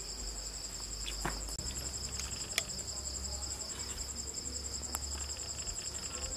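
Crickets chirping steadily in a fast, pulsing, high-pitched trill. A few light clicks of a metal spoon against a porcelain soup bowl come through, the sharpest about two and a half seconds in.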